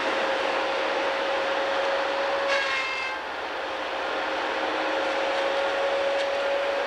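Timberjack 618 forestry machine running steadily under load, with a constant high whine over the engine noise. About two and a half seconds in, a brief, sharper whine with several tones comes in for about half a second, then the level dips slightly.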